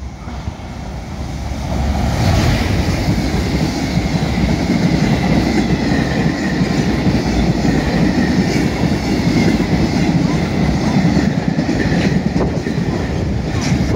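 A JR Freight EF210 electric locomotive runs through the station at speed, followed by a long train of container flatcars. The sound grows loud over the first two seconds as the locomotive arrives, then holds as a steady heavy rumble of wagon wheels on the rails, with a thin steady squeal and a few clicks as wheels pass rail joints.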